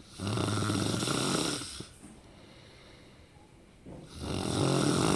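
A person snoring loudly: a long snore lasting about a second and a half, then after a pause another starting near the end.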